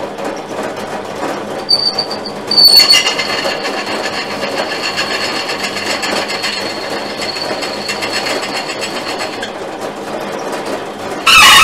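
Pillar drill running with its bit boring into a metal bar: a steady motor hum, with a high squeal of the bit cutting metal from about three seconds in, and a louder, harsher squeal near the end.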